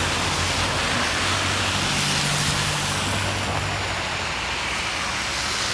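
Steady outdoor street noise with a motor vehicle's low engine hum, which fades out a little past the middle.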